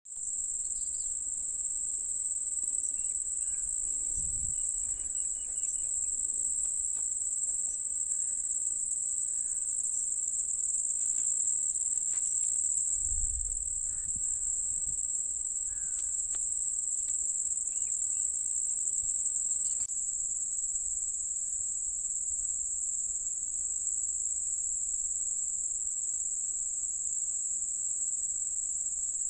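Steady, high-pitched chorus of insects, crickets or similar, chirring without a break.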